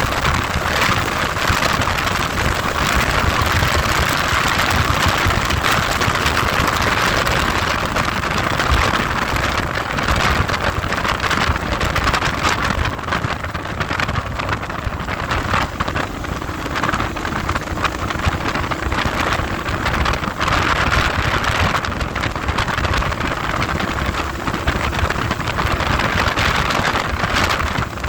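Heavy wind buffeting the microphone on a moving vehicle, a constant rushing rumble, with a faint steady engine tone coming through in the second half.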